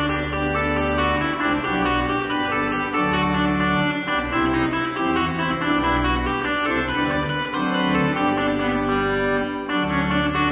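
Two-manual organ being played: sustained chords over a deep bass line, with the harmony changing every second or two.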